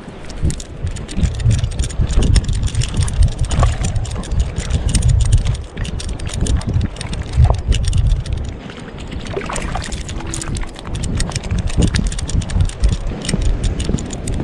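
Wind buffeting and rubbing noise on a camera strapped to a running dog. Heavy low rumble comes in gusts, eases twice, and carries many scratchy clicks and rustles from fur and grass brushing the microphone.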